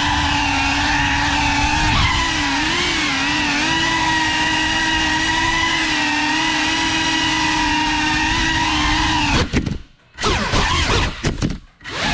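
GEPRC CineLog 35 FPV quadcopter's motors and propellers whining at a high pitch that wavers with the throttle, then holds steady and edges up. Near the end the whine drops away almost to silence twice, with short bursts in between, before picking up again.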